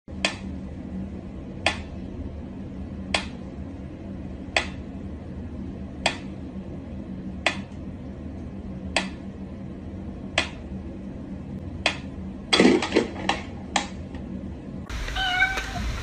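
Mechanical pyramid metronome ticking slowly, one sharp tick about every second and a half. Near the end comes a quick flurry of louder clicks and knocks.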